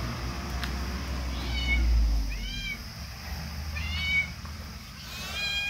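Kitten meowing four times, short high-pitched meows that each rise and fall in pitch, spaced about a second apart, with a low rumble of camera handling underneath.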